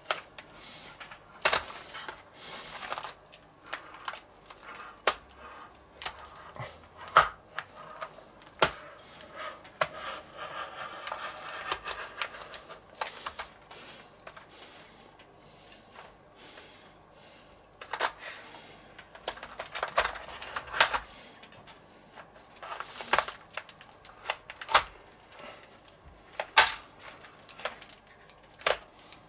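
Metal scraper pushed across the bottom of a stainless steel pan, scraping up a sheet of frozen ice cream base and rolling it into ice cream rolls. Irregular sharp clicks and taps of the blade on the pan, with a longer scraping stretch near the middle.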